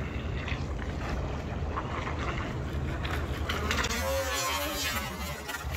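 Remote-control model boat running fast across a swimming pool, its motor going steadily with hull spray; the tone sweeps about four seconds in as it passes.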